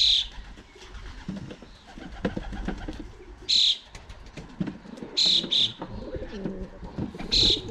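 Racing pigeons cooing in the loft, with five short, hissy bursts of noise a second or two apart that stand out as the loudest sounds.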